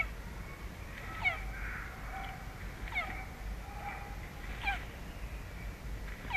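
An animal giving four short calls at even intervals, each one dropping quickly in pitch.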